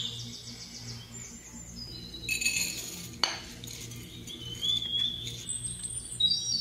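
Birdsong, repeated chirps and whistles, over a low steady hum, with a short rattle and then a sharp clink of a utensil against a dish about three seconds in.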